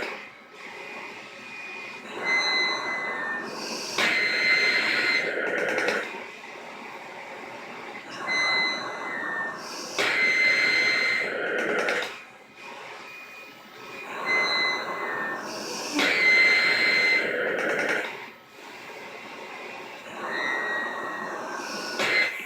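Mechanical cough assist machine cycling: its blower whines and air rushes through the circuit in a repeating pattern about every six seconds, a shorter flow with a steady whine, then a louder two-second rush of air, then a short quieter pause. Four such cycles run through.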